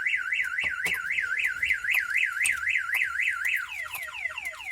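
The VAZ 2114's aftermarket car alarm siren sounding, wailing up and down about four times a second. About three and a half seconds in it switches to a repeating falling chirp.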